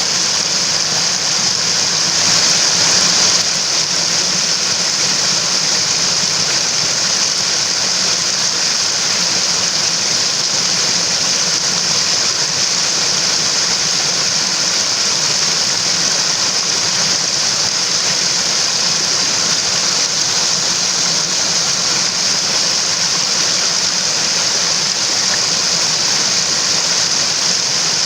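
A mountain stream rushing, a steady even hiss of water, briefly a little louder about two seconds in.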